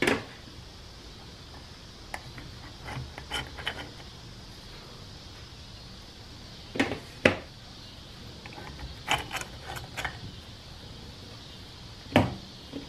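Transmission clutch plates, steel and friction discs from a 47RE's forward clutch pack, clinking and clacking as they are lifted out of the drum and set down on a metal table. The clacks come scattered and short, with the loudest pair about seven seconds in and another loud one near the end.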